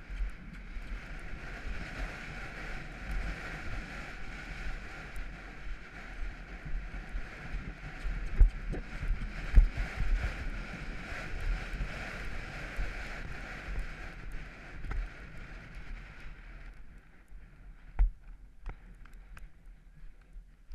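Wind rushing over a helmet camera's microphone as a horse gallops cross-country, with dull thuds of its hoofbeats and a couple of heavier thumps about halfway through. The rushing stops about three-quarters of the way in as the horse slows.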